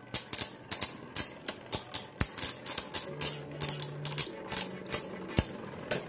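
Two Beyblade Burst spinning tops clashing as they spin in a plastic stadium: rapid, irregular sharp clicks, about three to four a second.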